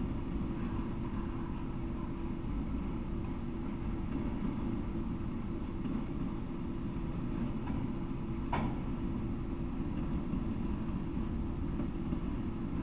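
Freight train of autorack cars rolling past: a steady low rumble of steel wheels on the rails, with one sharp click about two-thirds of the way through.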